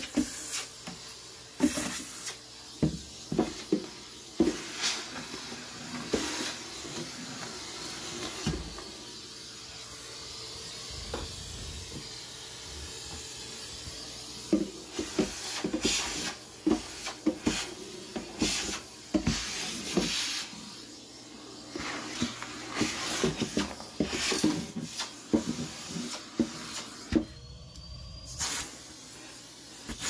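Vacuum cleaner running with a metal extension wand, sucking leaves, grit and spider webs out of a wooden storage bench. Its steady hiss is broken by frequent clicks and rattles as debris is drawn up the wand and the wand knocks against the wood.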